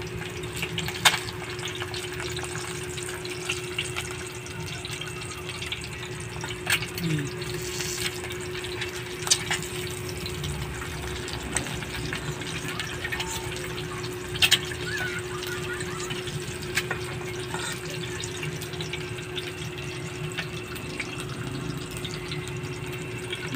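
Eggs frying in hot oil in a stainless steel wok: steady sizzling with scattered pops and crackles, a few sharp clicks of a metal fork against the pan, and a steady hum underneath.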